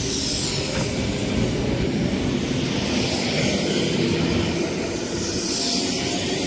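Sydney Trains K-set double-deck electric train pulling out of the station, a steady loud rumble of wheels and traction gear as its rear cars run past.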